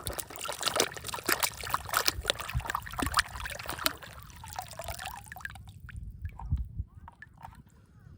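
Water sloshing and trickling with many small clicks and knocks, busy for the first five seconds or so and then sparser and quieter.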